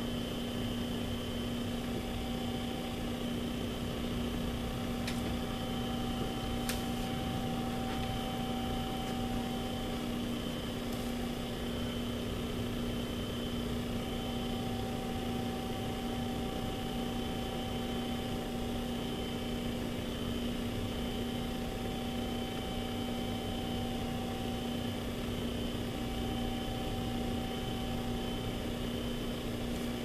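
Steady electrical hum over a constant hiss, with a few faint ticks a few seconds in.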